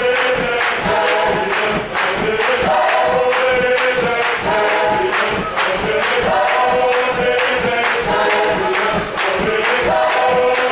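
A choir of mixed voices singing a repeating, chant-like line of held notes, over a quick steady beat of hand claps.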